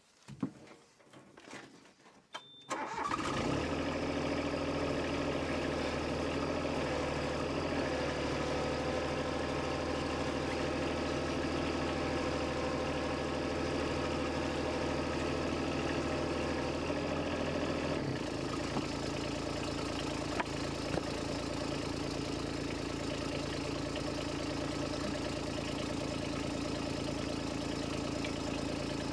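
A 1.7-ton mini excavator's diesel engine starts about three seconds in after a brief high beep, then runs steadily. About eighteen seconds in, its low note changes.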